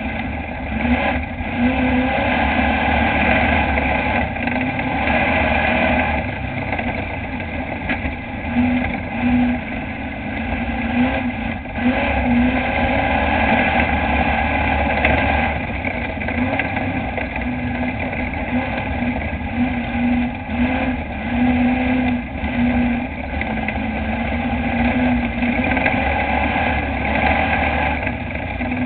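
Dirt-track race truck's engine running hard at speed, heard from inside the cab, its loudness swelling and easing every few seconds as it is driven around the oval.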